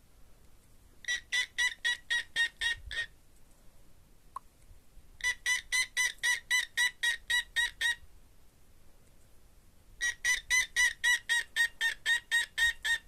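Cockatiel chirping in three bursts of rapid, evenly repeated notes, about five a second, each burst lasting two to three seconds.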